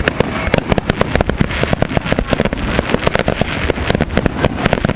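Fireworks going off in a dense, unbroken crackle of sharp pops, many per second, over a steady low rumble.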